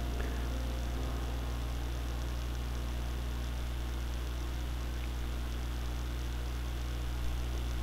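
Steady low mains hum with a background hiss.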